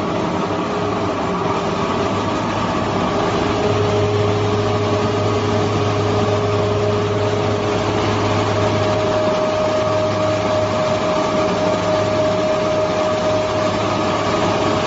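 Reignmac RMM523 four-sided moulder running: a steady mechanical hum and whine from its cutter-head spindles and motors, with the low hum growing stronger a few seconds in.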